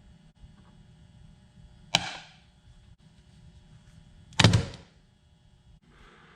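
Two sharp knocks about two and a half seconds apart, the second louder with a brief rattle after it, over a faint steady hum.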